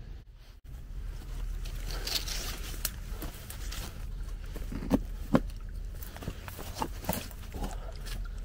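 Footsteps of a person walking outdoors, with scattered short clicks and knocks, the two loudest about five seconds in.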